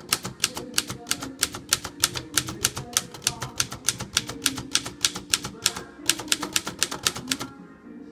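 Underwood 3-bank typewriter being typed on steadily: a fast run of sharp typebar strikes, about five a second, that stops near the end.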